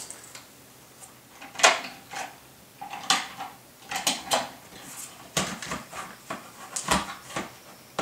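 Scattered hard-plastic clicks and short scrapes as a hardwired combination smoke and carbon monoxide alarm is handled and pressed up against its plastic ceiling mounting ring.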